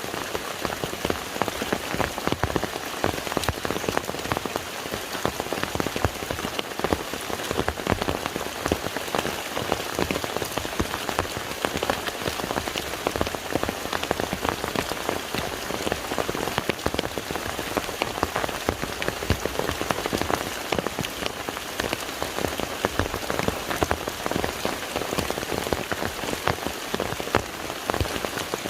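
Steady rain falling on a lake, a dense patter of countless drop impacts on the water without let-up.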